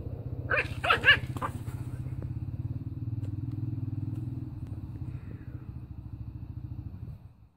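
Small terrier puppy growling steadily in a low, rasping rumble while guarding a piece of meat from lion cubs, with a few short, sharp barks about a second in; the growl stops abruptly near the end.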